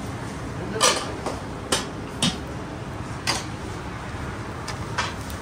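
Dishes and utensils clinking and knocking: about five sharp, irregular clacks, the loudest about a second in, over a steady low background noise.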